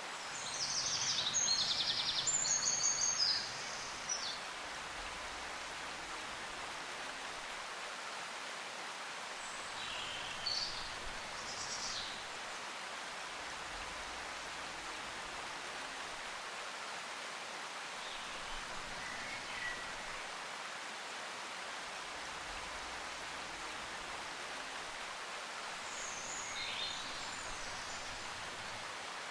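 Steady hiss like soft rain or running water. About a second in come a few seconds of high chirping, and fainter chirps follow later.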